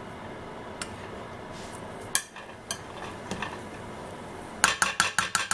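Metal spoon stirring and fluffing cooked white rice in a large metal pot, with scattered clicks of the spoon against the pot. Near the end comes a quick run of about eight sharp clicks.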